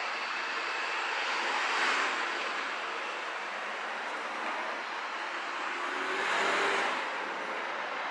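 City street traffic noise: a steady hiss of traffic with two vehicles passing, the sound swelling about two seconds in and again near the end.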